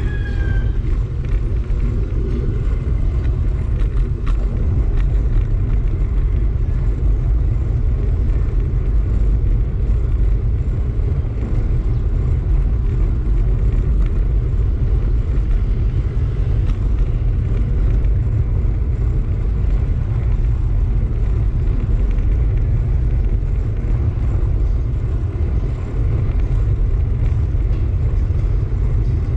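Wind buffeting the microphone of a camera riding on a moving bicycle: a steady low rumble with no break.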